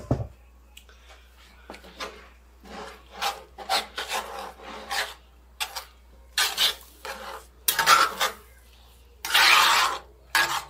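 Metal spatula scraping and stirring in a cast-iron skillet, working raw eggs into cooked breakfast sausage: irregular scrapes, the longest and loudest near the end, with a knock of the spatula against the pan right at the start.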